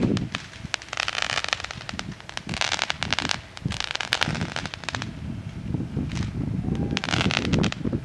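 Fireworks going off one after another, about four shots. Each is a hissing rush as it rises, peppered with sharp crackles.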